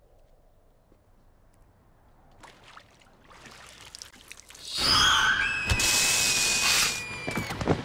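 Faint rustling that builds slowly, then about five seconds in a sudden loud shriek bursts in: a horror-film jump-scare effect of dense noise with a shrill held tone, cut off abruptly about two seconds later.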